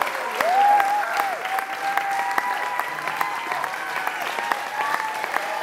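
Audience applauding steadily, with a few voices whooping and calling out over the clapping.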